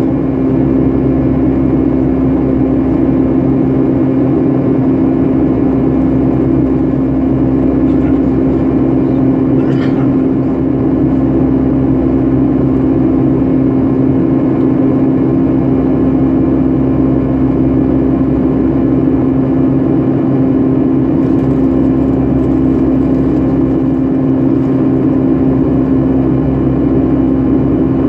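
Steady cabin noise inside a Boeing 757-300: a constant jet engine drone with a strong low hum and airflow rush, holding level throughout.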